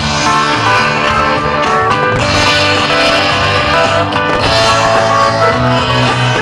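Rock music led by guitar, in an instrumental passage without singing.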